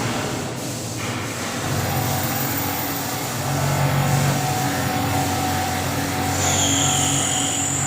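Horizontal drilling and boring milling CNC machine running, a steady low hum under a noisy spread of machining noise. A high-pitched whine joins about six seconds in.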